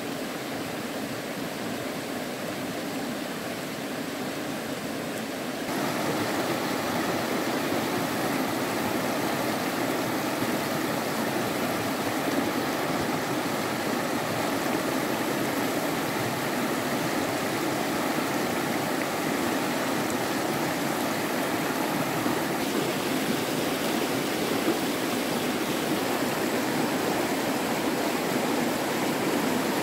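Stream water rushing steadily, an even wash of noise that gets louder about six seconds in.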